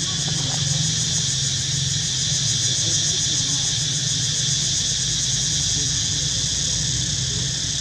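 Cicadas buzzing in a steady, high, fast-pulsing drone, with a steady low hum underneath.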